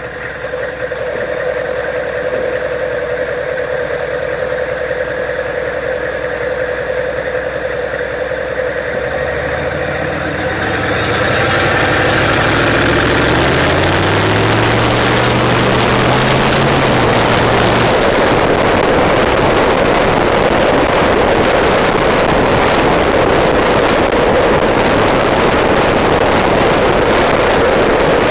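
Straight-piped 6.5 L Detroit Diesel turbodiesel V8 in a Chevy K3500 dually running at a steady note. About nine seconds in it accelerates hard, its pitch climbing and dropping back through the gears, with a thin rising whistle from the turbo. From about halfway on, a loud steady rush of exhaust and wind on the microphone covers it.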